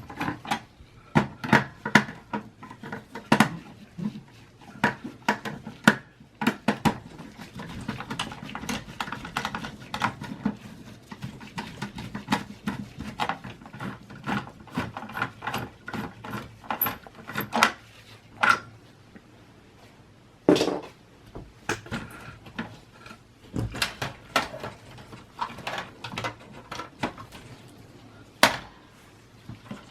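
Irregular clicks, knocks and light rattles of a desktop computer's metal and plastic parts being handled and worked loose by hand during disassembly, with a few sharper knocks scattered through.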